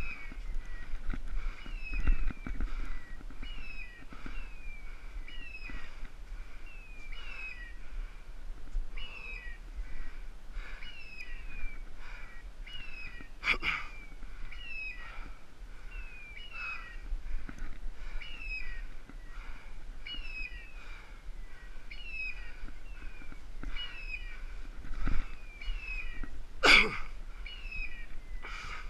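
Electronic beeper collar on a setter giving a short falling chirp about twice a second, without a break: the rapid point-mode signal that the dog is holding a point. A sharp rustling crack of brush or twigs comes about halfway and again, louder, near the end.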